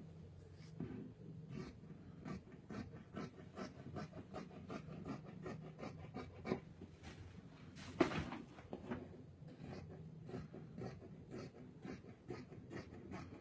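Scissors snipping through fabric along the edge of a paper pattern: a steady run of faint, short cuts, a few each second, with one louder click about eight seconds in.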